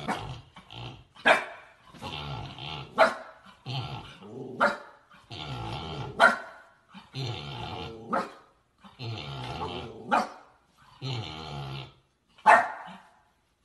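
Husky barking and growling in play: rough growly stretches each ending in a sharp bark, repeated about every second and a half to two seconds.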